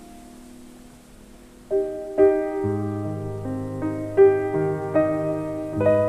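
Background piano music: a soft chord fades away, then a new phrase of piano notes begins a little under two seconds in, joined by low bass notes shortly after.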